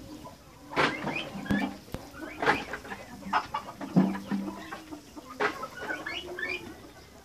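Hens clucking, mixed with high chirping and four sharp knocks about a second and a half apart.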